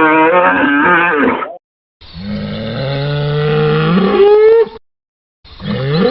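Cattle bellowing: three separate calls with short silent gaps between them. The first wavers and breaks off early on; the middle one, about three seconds long, starts low and rises sharply in pitch at its end; the last starts near the end and rises the same way.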